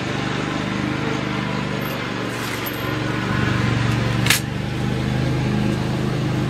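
An engine running steadily throughout, an even low drone. About four seconds in, a single sharp metallic click as the air rifle is cocked.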